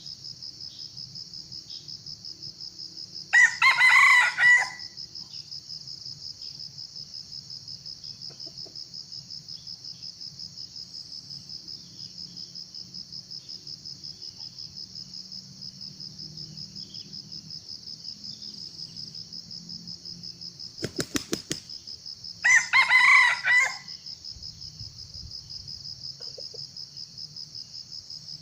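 A junglefowl crows twice, about 19 seconds apart, each crow lasting just over a second, over a steady pulsing trill of insects. Shortly before the second crow comes a quick run of sharp claps.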